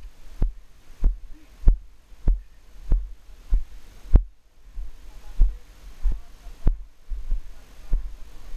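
A horse being ridden on arena sand, heard through a helmet-mounted camera: muffled low thumps in a steady stride rhythm, a little under two a second, with a short break in the rhythm around the middle.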